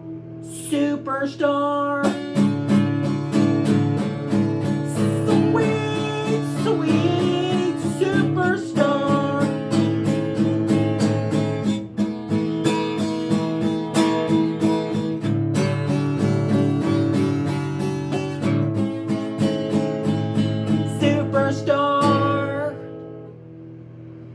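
Acoustic guitar strumming chords in a steady rhythm, dying away near the end.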